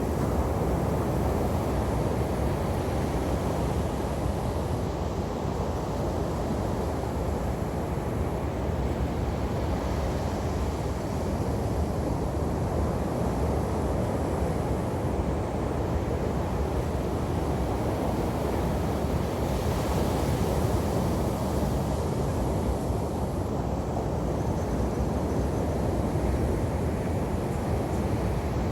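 Ocean surf breaking on a beach, a steady low rush of waves with slight swells in level, with wind buffeting the microphone.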